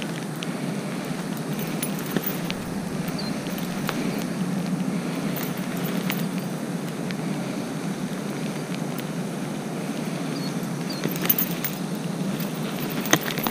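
Steady rain and wind noise, with light metallic clicks and clinks as the spinnerbait's blades and hooks are handled, a couple of sharper ones near the end.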